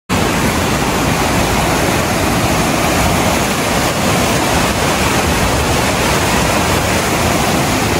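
Swat River in fast white-water flow beneath a bridge: a loud, steady rush of turbulent water.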